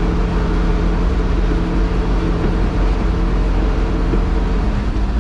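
1971 Chevrolet C50 boom truck's engine running steadily while the truck drives along, a constant low drone that holds the same pitch throughout.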